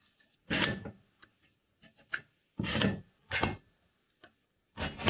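Steel scriber drawn along a square across the end of a rectangular steel tube, scratching a line to square the end to: four short scratch strokes with light ticks between them.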